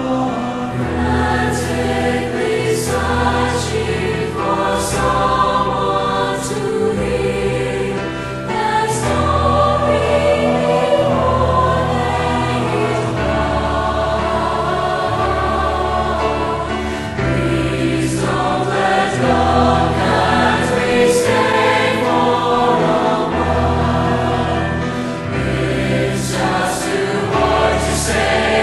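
Music: choral singing over long, held low bass notes.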